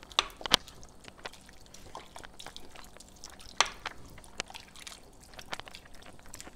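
Chicken broth pouring from a carton into a saucepan of beans and tomatoes in a thin trickle, while a wooden spoon stirs the soup. The spoon knocks and clicks against the pot now and then, sharpest about half a second in.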